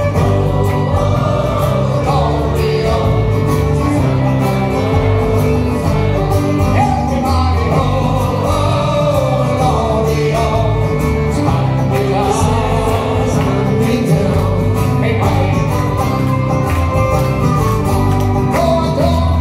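Live folk band playing a song on acoustic guitars, banjo and bass, with men's voices singing together over it.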